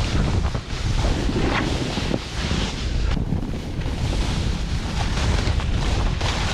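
Loud wind buffeting the microphone, over a steady rushing hiss that swells and fades, the sound of a snowboard sliding fast through heavy snow.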